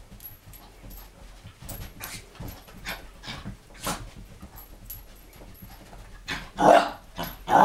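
A dog making excited sounds while chasing a laser-pen dot, with two loud, short outbursts near the end.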